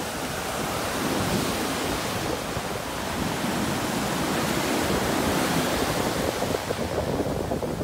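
Sea surf breaking and washing up a sandy beach as a continuous rushing, with wind buffeting the microphone.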